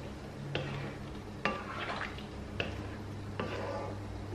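Wooden spatula stirring vegetables in coconut milk in a non-stick wok, with about four light knocks and scrapes against the pan, roughly a second apart, over a steady low hum.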